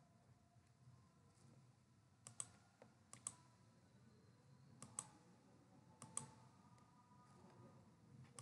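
Faint computer mouse clicks: four quick pairs of clicks about a second or so apart, with another pair right at the end, over a faint low hum.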